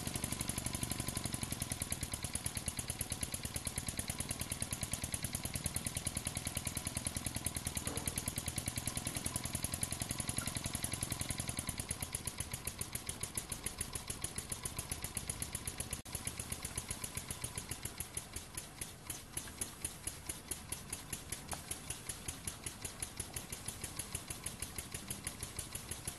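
Stirlingkit RW-BL1K single-cylinder model steam engine chugging over steadily at low speed, an even run of short exhaust beats. About halfway through, the beats grow quieter and a little slower. Running this slowly is the sign of a good steam engine.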